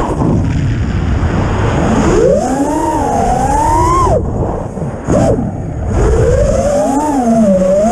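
FPV quadcopter's brushless motors spinning 5-inch props, whining and gliding up and down in pitch with the throttle. About four seconds in, the throttle is chopped and the whine drops away, with a short blip. Then it climbs again, with wind rumble on the onboard microphone.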